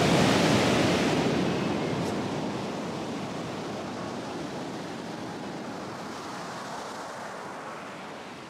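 Ocean surf rushing up a sandy beach, a steady wash of noise that slowly fades.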